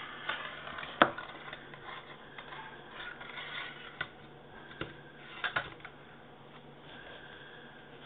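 Metal Slinky clinking and scraping on a hard countertop as a kitten pushes and paws at it: a few sharp clicks, the loudest about a second in and a quick pair a little past halfway, with rustling and rubbing between.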